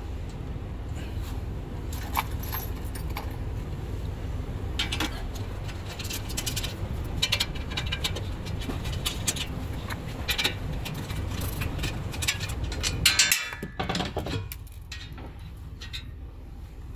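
Light metallic clinks and scrapes as screws are loosened by hand and a perforated steel storage panel is worked off its mounting brackets, with a louder clatter about thirteen seconds in. A steady low rumble sits underneath and fades after about fourteen seconds.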